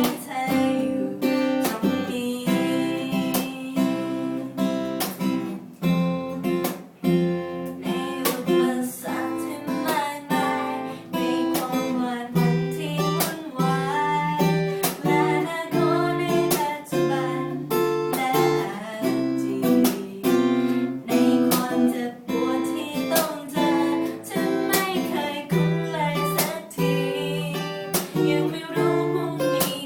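Acoustic guitar strummed in a steady rhythm, accompanying a song, with a voice singing over it.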